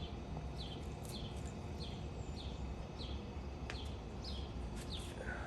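A bird chirping over and over: short falling chirps, evenly spaced a little under two a second, over a steady low hum.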